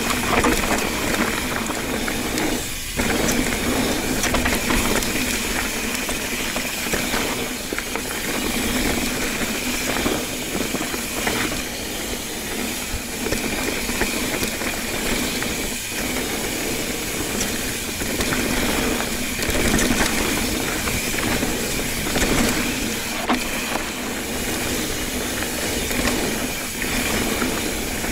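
Mountain bike ridden along a dirt trail: steady tyre and wind noise with scattered knocks and rattles over bumps, and at times the ratchet clicking of the rear hub.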